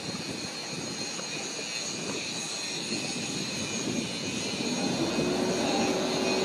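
Motor cruiser's engine running at low speed as the boat comes in, getting louder near the end as it draws close.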